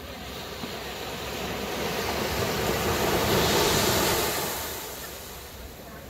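A rush of noise that builds for about three seconds and then dies away.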